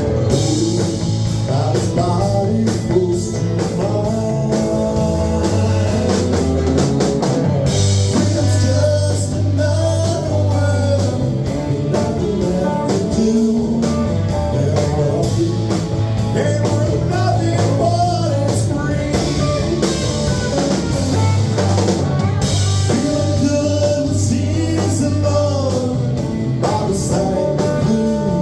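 A live band playing a blues-rock song: guitar, bass and drum kit, with a voice singing.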